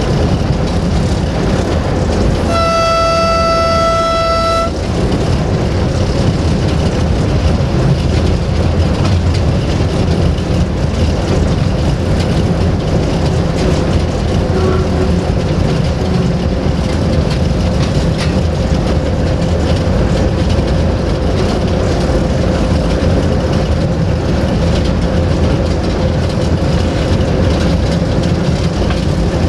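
Inside the cab of an LDE2100 (060-DA) diesel-electric locomotive under way: the Sulzer diesel engine runs steadily over wheel and track noise. A few seconds in, the locomotive's horn sounds once, a single steady note lasting about two seconds.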